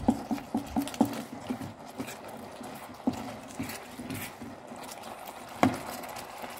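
Wooden spatula stirring spaghetti and sauce in a pan, with a quick run of knocks in the first second, scattered ticks after, and one sharp knock against the pan near the end.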